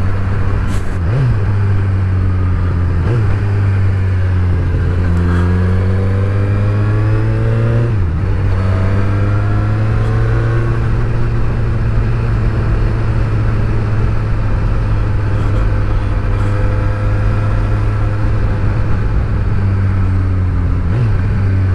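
Suzuki Katana 1000's inline-four engine under way, rising in pitch as it accelerates, dropping sharply about eight seconds in and climbing again, then holding a steady note at a cruise.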